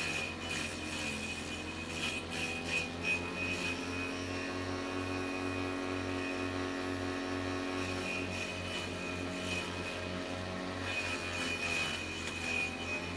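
Homemade vegetable chopper, a water-pump electric motor spinning a grass-cutter blade, running with a steady hum. Bursts of rattling clicks come a couple of seconds in and again near the end.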